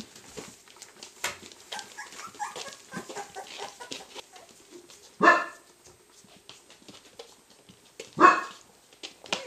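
Cardigan Welsh Corgi barking twice, about three seconds apart, each bark short and loud. Before them come faint squeaks from the 3-week-old puppies and light clicks.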